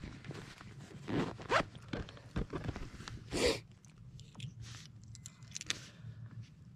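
Rustling of waterproof clothing and crunching of slushy ice at the edge of an ice-fishing hole while a lake trout is eased back down into it: a string of short rasps, loudest about a second and a half in and again past three seconds.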